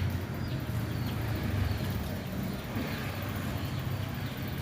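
Outdoor ambience: a steady low rumble, like traffic or an engine, with small birds chirping, short falling chirps about once a second.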